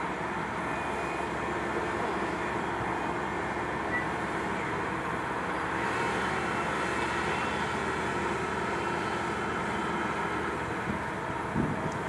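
Komatsu PC130 excavator's diesel engine running steadily under load as the boom and arm move and the upper body swings. A few brief low bumps come near the end.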